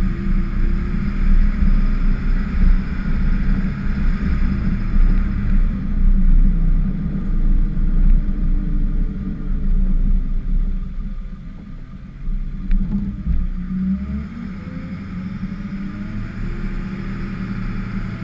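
Ford F-550 plow truck's engine running under load while plowing snow, heard from the hood, its revs rising and falling with a steady hiss over it. About twelve seconds in it eases off and drops quieter, then it revs up again.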